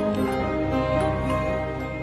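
Gentle instrumental background music with held, slowly changing notes and a few light tinkling high notes.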